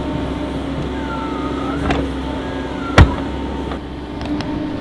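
Excavator diesel engine running, with a whine that dips and rises in pitch as the bucket digs into the dirt. A single sharp clank about three seconds in.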